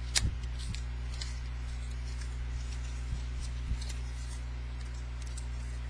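Scattered light clicks and rustles of small cosmetic packaging being handled, the sharpest about a quarter second in, over the steady low hum of a desk fan.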